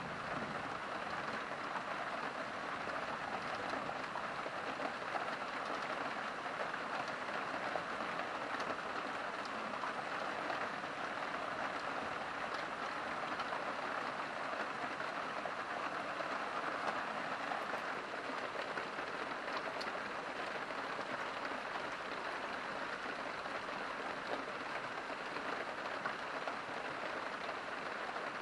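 Heavy rain falling steadily, an even hiss of drops with no break.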